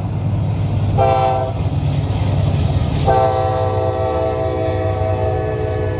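Norfolk Southern diesel locomotive's air horn sounding a chord: a short blast about a second in, then a long blast held for nearly three seconds, the short-then-long ending of the grade-crossing signal. A steady diesel rumble of the approaching locomotives runs underneath.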